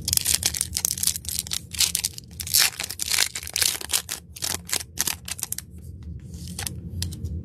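A plastic trading card pack wrapper being torn open and crinkled, with dense crackling for about five seconds that thins out near the end.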